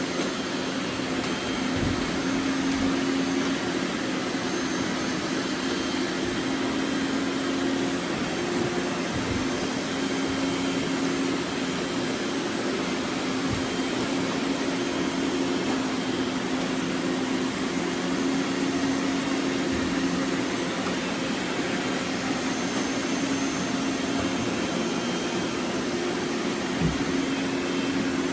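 Several robot vacuums running at once: a steady whirring hum of their fans and brushes, with a few faint low knocks along the way.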